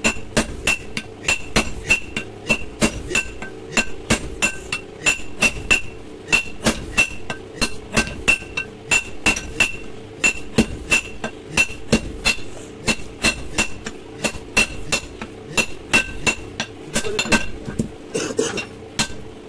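Hand hammer forging a red-hot steel bar on a railway-rail anvil, striking steadily about three times a second, each blow with a bright metallic ring.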